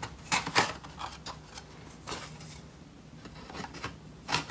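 Wooden organiser panels clacking and scraping as a slotted board is slid into its grooves: a few light knocks in the first second, another about two seconds in, then quieter handling.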